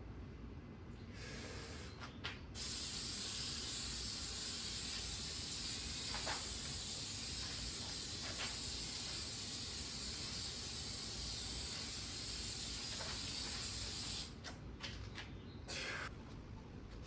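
Aerosol spray can hissing as a clear headlight coating is sprayed onto a plastic headlight lens: a couple of short spurts, then one continuous spray of about twelve seconds, then a few more short spurts near the end.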